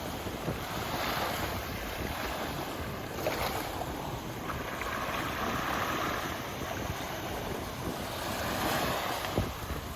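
Small sea waves washing onto a beach, the wash swelling and fading several times, with wind rumbling on the microphone.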